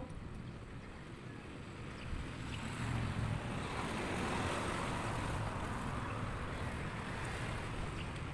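A motor vehicle passing on the road, growing louder about a third of the way in and easing off near the end, over a low steady rumble.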